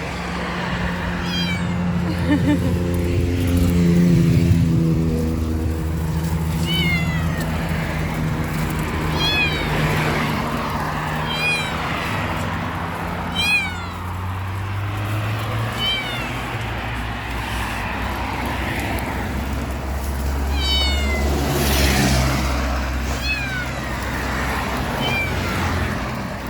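Perdoll kittens meowing again and again, short high-pitched meows every second or two, over a steady low rumble.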